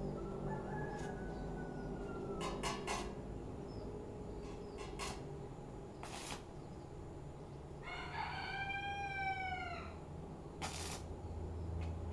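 A rooster crowing once, a long call that rises and then falls, about eight seconds in. A few short, sharp knocks come before and after it over a steady low hum.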